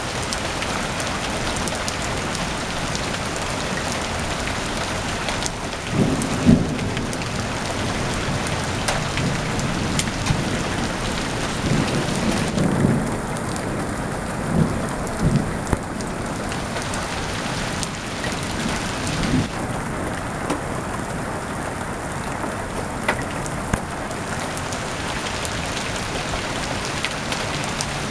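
Small hailstones mixed with rain pelting a lawn and pavement: a steady hiss sprinkled with many sharp little ticks of hail strikes. Low rumbles come through several times, the first about six seconds in.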